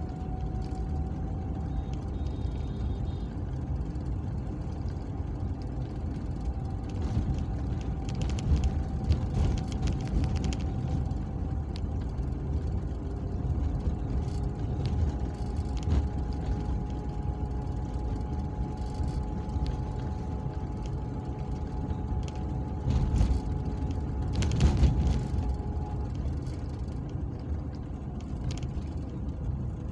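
Car interior while driving slowly on a rough town road: steady low engine and road rumble with a faint whine that drifts slowly in pitch. A few brief knocks and rattles along the way, the loudest a little over halfway through.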